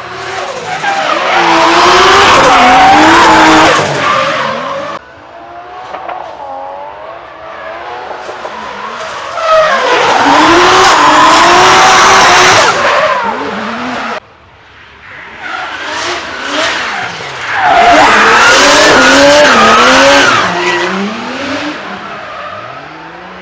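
Drift cars sliding past one after another, engines revving up and down in pitch over loud tyre screech. There are three loud passes, the first two cut off abruptly.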